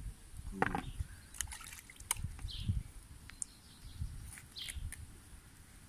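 Quiet outdoor handling sounds: a few small clicks and knocks, with wind gusting on the microphone and a couple of short bird chirps.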